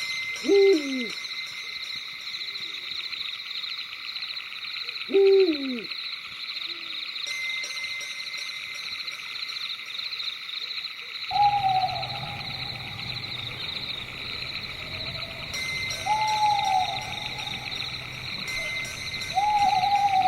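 Owls hooting over a steady, high, fast-pulsing night chorus. Two long calls slide steeply down in pitch in the first few seconds. After the background changes, about halfway through, three shorter hoots come a few seconds apart.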